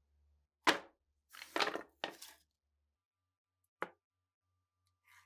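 Pieces of wooden board knocking and scraping on a workbench as they are handled. There is a sharp knock about half a second in, a quick cluster of scrapes and knocks a second later, and one more short knock about four seconds in.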